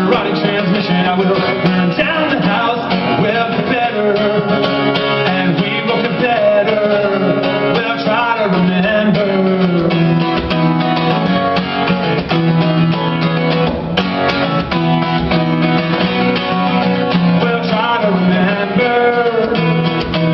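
Acoustic guitar strummed hard and fast in a live performance, driving a steady rhythm over ringing low notes.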